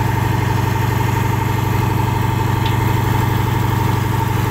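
Sand-suction dredge's engine running steadily: a constant low drone with a steady higher tone on top.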